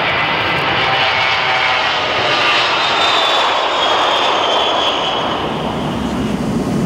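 Boeing 707 (CC-137) turbofan engines at takeoff power as the jet lifts off: a loud, steady jet roar with a high whine that slowly falls in pitch. Near the end a deeper rumble takes over.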